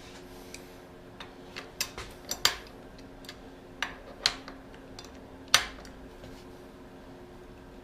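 Scattered light metallic clinks and taps of hand tools and motorcycle bar-end hardware being handled, about ten in all, the loudest about five and a half seconds in. A steady faint hum runs underneath.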